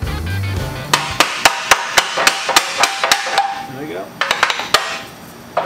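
Hammer tapping on steel: quick ringing strikes about four a second, in two runs with a short break about three and a half seconds in.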